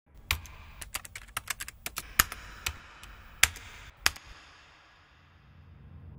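A run of about twenty sharp, irregularly spaced clicks over a faint hiss, stopping about four seconds in.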